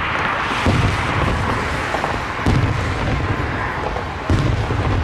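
Fireworks shells bursting overhead: three deep booms, about one second in, near the middle and near the end, with a steady rushing noise between them.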